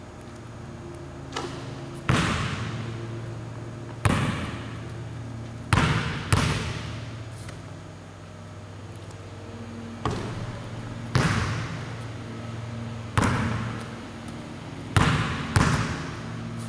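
A basketball bangs on a hardwood gym floor about ten times at irregular intervals, some in quick pairs, each bang echoing through the large hall. A steady low hum runs underneath.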